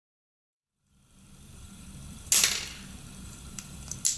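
Silent for the first second, then a small plastic mailer bag being torn open and handled: one short, sharp rip about two seconds in, followed by a few light clicks near the end.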